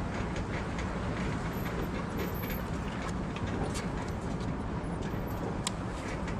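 Truck driving on a rough desert dirt road, heard from up on its high rack: a steady rumble with scattered rattles and knocks throughout.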